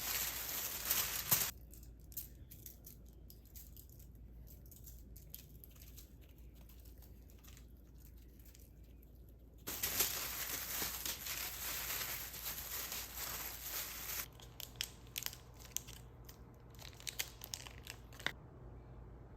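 Packaging being crinkled and torn open in two rustling spells, with light clicks and taps of handling between them.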